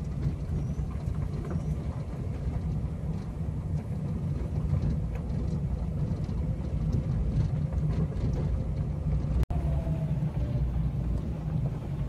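A vehicle travelling on the road: a steady low engine and road rumble with no change in pace. The sound cuts out for an instant about nine and a half seconds in.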